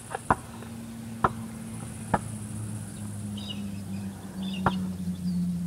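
A basketball bounced on hard ground: single sharp thuds, three about a second apart and one more after a longer pause, over a low steady hum that grows louder near the end.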